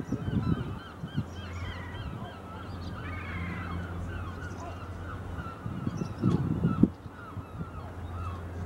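Many gulls calling at once, short squawks overlapping across the harbour, over a steady low hum. Low rumbles surge twice, just after the start and again around six to seven seconds in, the second one the loudest.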